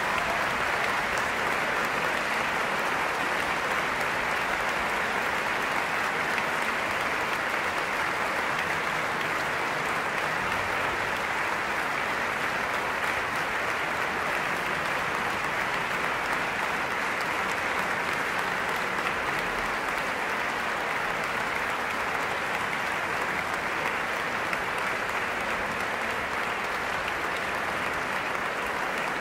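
Audience applauding steadily, a dense, even clapping that holds at the same level throughout.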